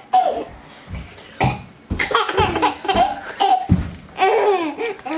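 Several deep burps, each met by a young child's laughing.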